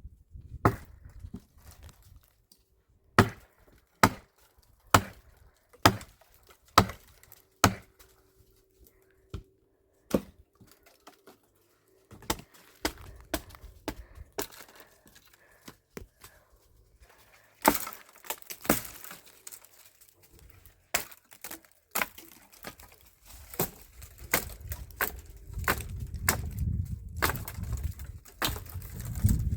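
Firewood being chopped: sharp wooden strikes about once a second, then quicker, irregular chops and cracks through the second half.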